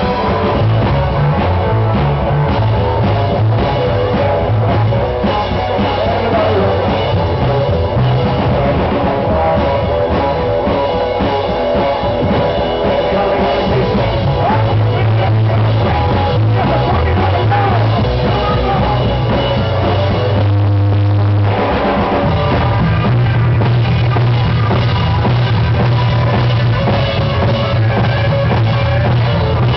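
Rock band playing a loud, steady song with drum kit, bass and electric guitar.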